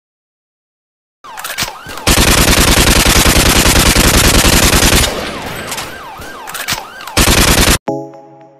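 Intro sound effects: a long burst of rapid automatic gunfire and a second short burst, with short siren-like whoops around them. A ringing chord then fades out near the end.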